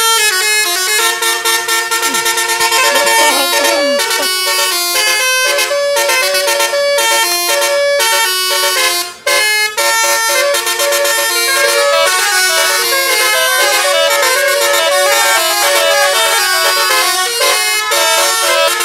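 Bus 'telolet basuri' musical air horns playing a tune: loud, steady horn notes that step from pitch to pitch, several sounding together as chords, with one brief break about nine seconds in.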